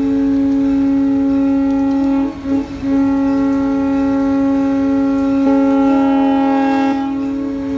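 Steam locomotive chime whistle blowing one long chord of several tones, with a brief stutter about two and a half seconds in.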